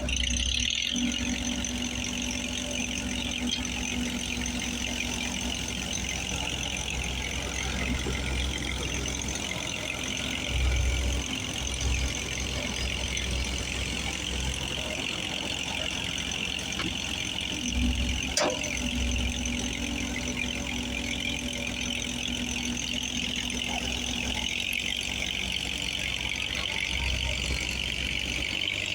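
An engine running steadily with a low rumble that swells now and then, and a single sharp click about eighteen seconds in.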